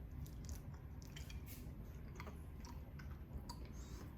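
A person chewing soft fruit, with faint, irregular wet mouth clicks and smacks.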